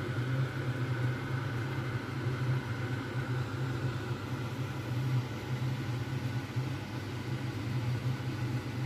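Steady low mechanical hum of a running machine, level and unchanging throughout.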